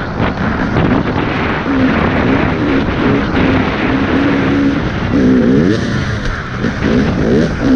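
Motocross dirt bike engine under hard throttle, holding a steady pitch and then climbing in several quick rises from about two-thirds of the way through as the rider gets back on the gas, over a steady rush of noise.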